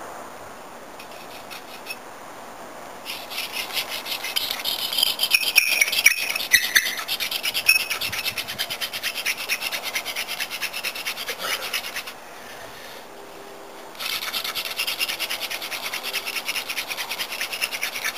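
Hand-drill fire-by-friction set: a sunflower-stalk spindle with an arrow-shaft tip spun hard between the palms in a hearth-board socket, giving fast dry rubbing. It comes in two long bouts, with a short break about twelve seconds in.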